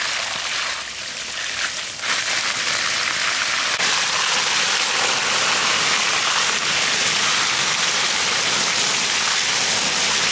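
Water from a garden hose spraying forcefully onto beef intestines and the wet wooden table beneath them as gloved hands rub them, a steady loud splashing hiss. It dips slightly about a second in, then grows louder around two seconds and again near four seconds.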